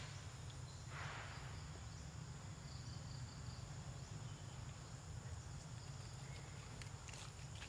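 Faint outdoor forest ambience: a low steady rumble under faint insect chirping, with a brief rustle about a second in and a few small ticks near the end.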